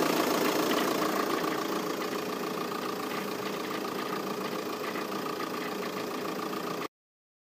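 VW Passat 3C 2.0 TDI four-cylinder diesel engine idling steadily with a steady whine running through it, an odd noise whose source the owner cannot place. It cuts off suddenly near the end.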